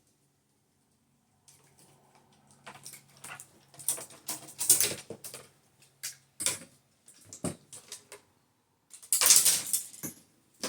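Handling noise from fishing rods and reels being moved and set down: irregular scrapes, clicks and rustles, loudest about four to five seconds in and again about nine to ten seconds in.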